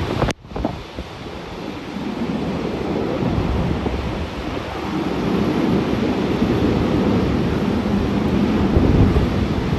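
Strong wind buffeting the microphone in heavy rain, a dense low rumbling roar with rain hiss over it. It cuts out briefly just after the start, then builds back to a steady roar.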